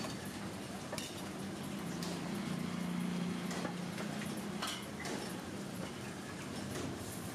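A handful of sharp metal clinks from a steel spatula and utensils at a street-food dosa griddle, over a steady low hum.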